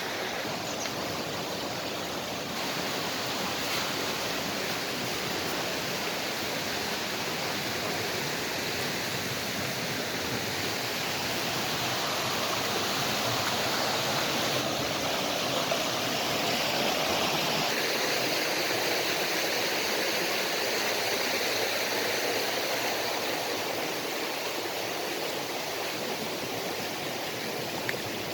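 Mountain stream rushing over rocks, a steady, even rush of water that swells a little mid-way.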